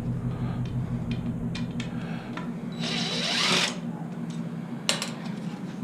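Cordless impact driver running in one burst of about a second in the middle, with a steady high whine, among a few light clicks and knocks of handled metal parts.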